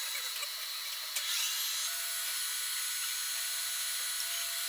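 Steady workshop hiss with a few steady tones, and light metallic clicks from a valve keeper-installer tool pressing retainers and keepers onto the valve springs of a diesel cylinder head, the sharpest about a second in.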